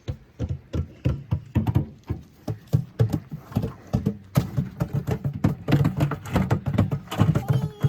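Children banging out an irregular, unpatterned rhythm on makeshift percussion: a string of quick knocks and taps, several a second.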